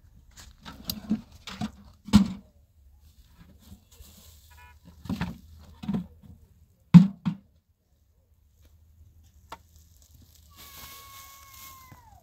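Irregular dull knocks and thumps, about eight of them, then near the end a short steady pitched call that drops in pitch as it stops.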